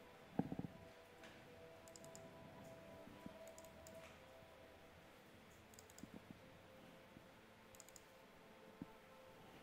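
Near silence with soft computer mouse clicks as folders are opened: a quick cluster about half a second in and a few fainter clicks later.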